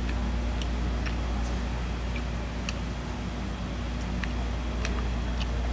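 Steady low hum of the room, with scattered faint wet clicks and smacks of a person chewing and licking his fingers while eating with his hands.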